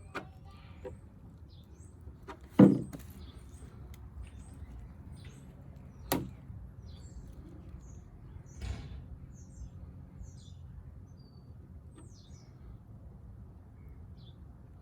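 Four sharp knocks of tools or parts being handled, the loudest about two and a half seconds in, over small birds chirping throughout.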